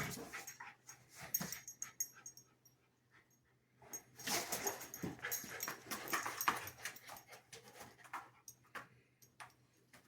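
Two husky puppies playing and chasing each other around the house: irregular scuffling and clicking noises from their romp, with a short lull about three seconds in.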